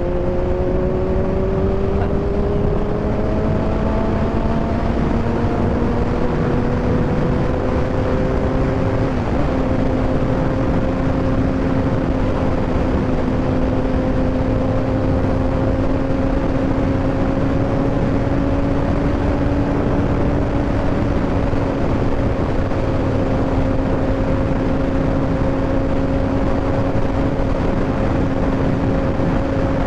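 Kawasaki motorcycle engine under way: its note climbs gradually for about nine seconds, changes abruptly once, then holds a steady pitch at cruise over a constant rushing noise.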